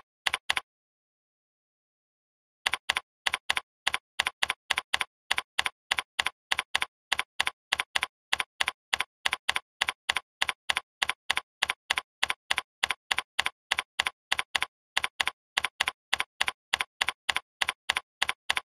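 Computer keyboard keystrokes clicking as text is typed. A few clicks at the start, a pause of about two seconds, then a steady run of about three keystrokes a second, each click alike, with dead silence between them.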